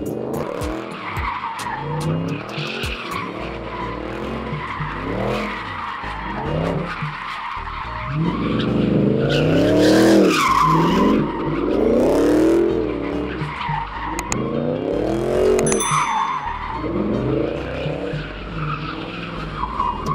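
Dodge Charger doing donuts, its engine revving up and falling back again and again in surges a second or two long, with the tyres squealing and scrubbing on the pavement.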